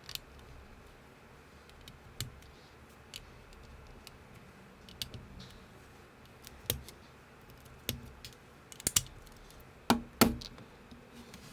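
LEGO-compatible plastic building bricks clicking and snapping together as they are handled. The clicks are sharp and irregular, and the loudest come close together about ten seconds in.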